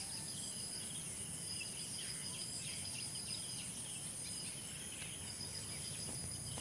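Outdoor rural ambience: insects drone steadily at a high, even pitch, with faint bird chirps scattered through.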